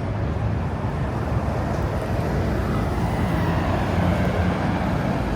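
Steady city street traffic: a continuous rumble of passing vehicles, swelling slightly in the middle.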